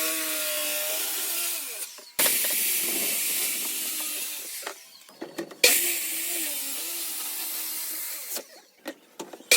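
Electric power saw cutting plywood sheets, in three runs that start abruptly and die away between them, its motor hum wavering under the hiss of the cut.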